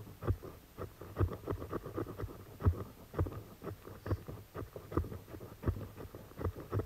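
Quick, irregular scraping strokes, about two to three a second, from a hand tool worked down into a dry tinder bundle on bark.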